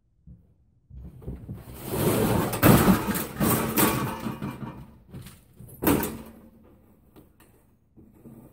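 Sheet-metal banging and rattling as a man climbs onto and stands on a small air-conditioning unit's metal cabinet, with one sharp loud bang about six seconds in.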